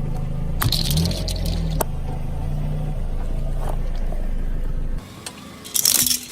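A motor running with a steady low hum that shifts slightly in pitch, then stops about five seconds in, followed near the end by a short, sharp crackle like something brittle breaking.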